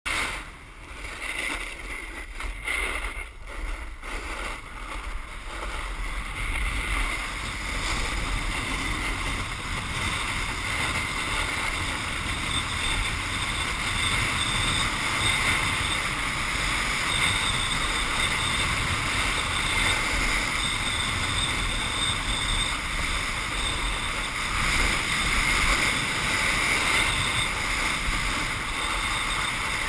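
Steady wind rushing over an action camera's microphone while snowkiting, with a rumbling buffet and a hiss from the board sliding over the snow; it is less even in the first few seconds and then settles.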